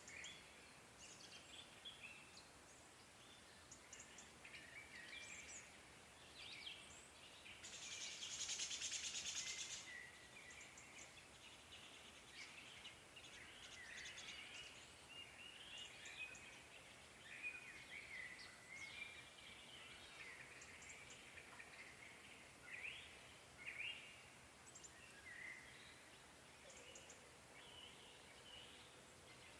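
Several forest birds chirping and singing faintly, with many short calls throughout. About eight seconds in, a louder rasping buzz lasts about two seconds.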